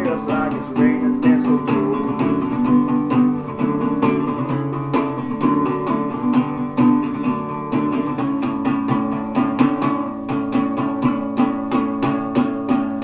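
Acoustic guitar strummed alone in a steady rhythm, its chords ringing on between strokes, with no voice.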